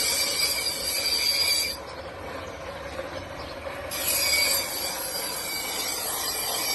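Knife blade held against a bicycle-driven sharpening wheel, giving a high, steady grinding screech of metal on the wheel. It drops away about two seconds in and comes back about two seconds later, as the blade is lifted off and pressed on again.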